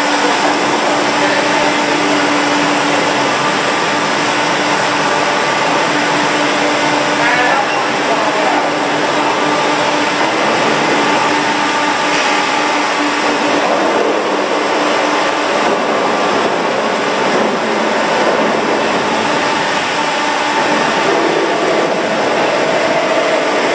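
Steady, loud hiss of water spray quenching a large steel shaft as it turns through an induction-hardening coil, the water flashing to steam on the red-hot steel, with a low steady hum underneath.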